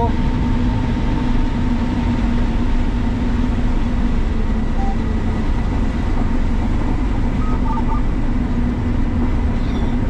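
Combine harvester running through standing corn, heard from inside the cab: a steady machine drone with a constant low hum. A few short faint beeps sound around the middle.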